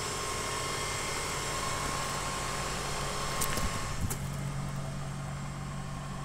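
An engine idling steadily with a low hum, and a few light knocks a little more than halfway through.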